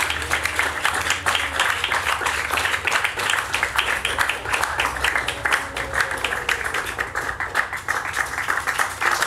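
Audience applauding: many hands clapping densely and unevenly, thinning a little about seven seconds in before picking up again.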